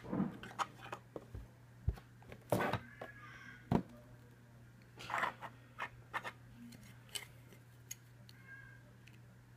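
Handling noise as a scale model airliner and its packaging are taken out and picked up: scattered clicks, taps and short rustles, over a steady low hum.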